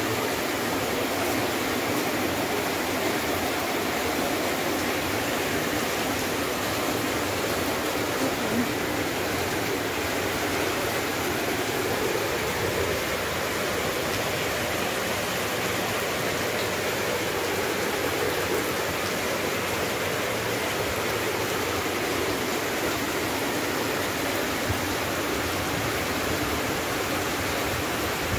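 Heavy rain falling onto rainwater that is running over paved ground, with the runoff rushing along. It makes a steady, even hiss of water throughout.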